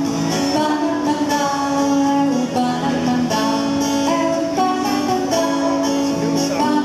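A woman singing a song while accompanying herself on a strummed steel-string acoustic guitar, her held notes gliding between pitches over the steady guitar.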